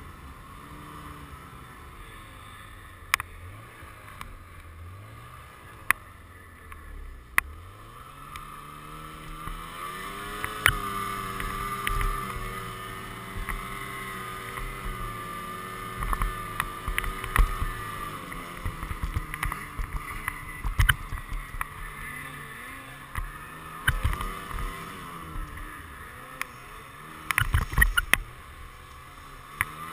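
Snowmobile engine running under load through deep snow, its pitch rising and falling as the throttle changes. Occasional sharp knocks come through, with a cluster near the end.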